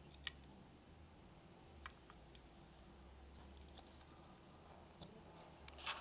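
A few faint, sharp clicks from a handheld car alarm remote being handled and its buttons pressed, scattered at first and bunched together near the end, over quiet room tone.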